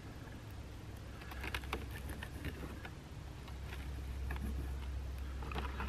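A kitchen knife scoring the skin of a fish fillet, its blade making light scattered clicks and taps on a plastic cutting board, busiest a couple of seconds in, over a low steady rumble.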